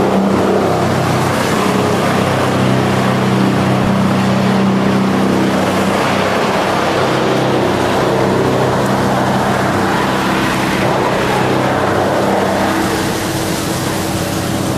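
Wood-chipping plant with a drum chipper running steadily: a continuous machine hum with a rushing noise over it, easing slightly near the end.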